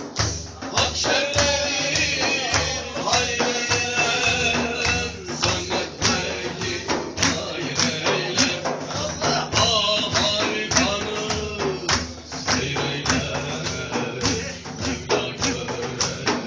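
Music with a steady tambourine beat under a sung melody.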